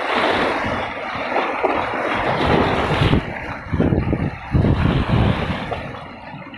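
Wind buffeting the microphone in gusts, with heavy low rumbles in the second half, over sea waves washing against the rocks.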